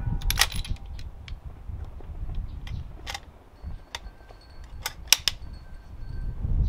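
About half a dozen sharp, separate metallic clicks from handling a bolt-action rifle, over a low wind rumble on the microphone.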